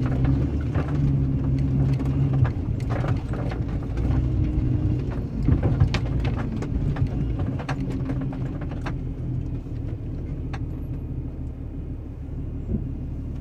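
Old Jeep's engine running at low speed over rough off-road ground, heard from inside the cab, with scattered knocks and rattles of the body as it crosses bumps and brush. The engine is at its loudest early on, then quietens near the end as the Jeep comes to a stop.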